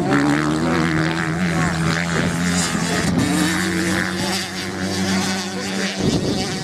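Motocross bike engines racing, the pitch rising and falling as the riders work the throttle. The sound changes abruptly about six seconds in.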